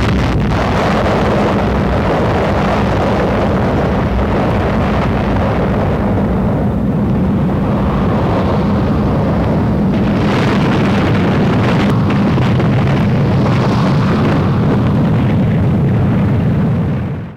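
Rumble of a huge explosion, going on steadily for many seconds and fading out quickly at the end.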